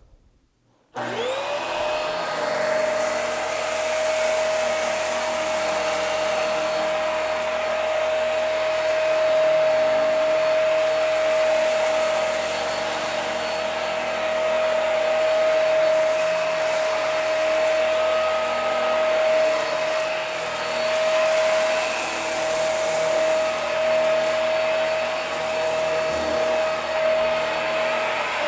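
Hoover Max Life Pro Pet Swivel upright vacuum switched on about a second in. Its motor spins up within a second and then runs steadily, a steady whine over rushing air.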